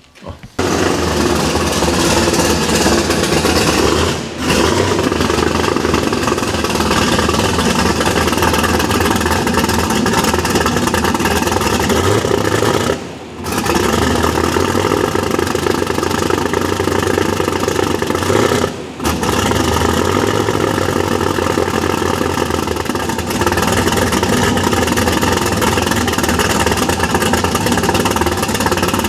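Turbocharged 350 small-block Chevy V8, with a high-lift supercharger cam and an open exhaust pipe, catches about half a second in and keeps running on its first start, loud and not running perfectly, as it is not yet tuned. The sound dips briefly three times.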